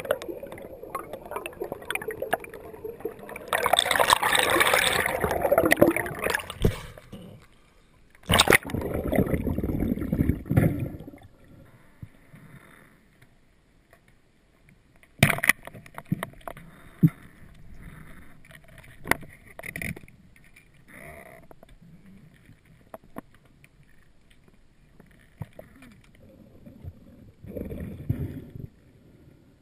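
Water heard underwater through a camera's waterproof housing: gurgling and bubbling in two loud stretches in the first third, then quieter water with scattered sharp clicks and knocks, and more bubbling near the end.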